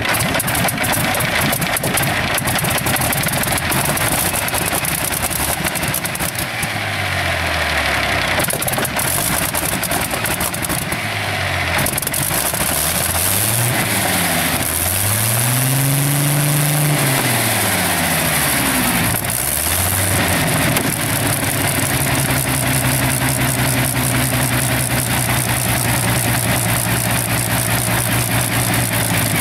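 Rolls-Royce Griffon 37-litre, 60-degree V12 liquid-cooled aero engine running with its propeller turning. Its speed rises and falls several times, with the biggest swell about halfway through, then holds steady near the end.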